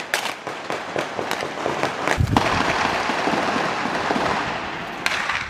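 Military rifles firing blank cartridges: a string of sharp cracks in the first two seconds, one louder shot about two seconds in, and another shot near the end. A few seconds of steady noise fill the gap between the shots.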